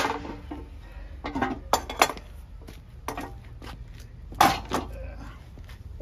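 Metal clanks and rattles of an old-style manual bead breaker being handled and set onto a steel wheel, several separate knocks with a short ring, the loudest about four and a half seconds in.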